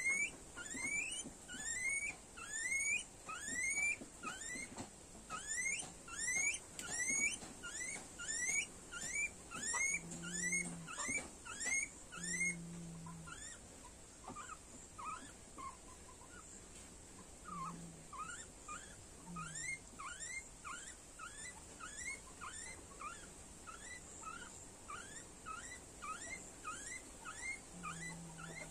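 Guinea pig squealing: a quick string of short, high rising calls, about two a second, loud at first and softer from about halfway through.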